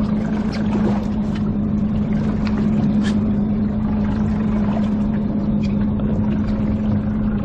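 Boat engine running at a steady speed, a constant low hum over steady rushing noise.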